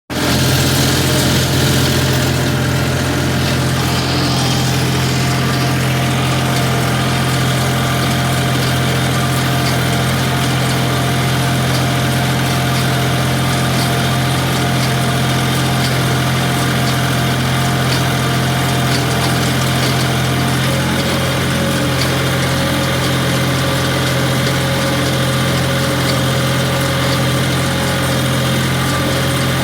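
Case 385 tractor's engine running steadily while driving a John Deere 14T hay baler, with a strong constant low drone. Its upper tones shift slightly about 20 seconds in.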